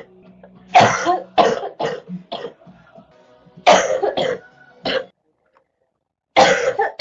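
A girl's wet cough from a chest cold: three fits of several coughs in quick succession, the last starting near the end.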